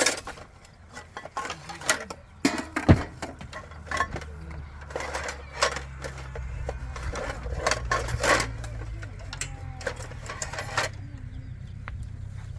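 Irregular knocks and clatters of hard objects being handled, with a low steady hum like a motor coming in about five seconds in.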